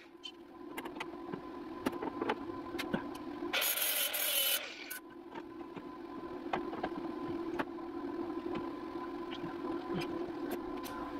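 MIG welder tacking steel patch metal: one crackling burst about a second long near the middle, over a steady hum, with scattered light clicks and taps.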